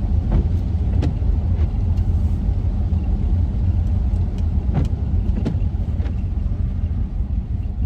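Steady low road rumble of a van driving, heard inside the cabin, with a few faint, irregular ticks.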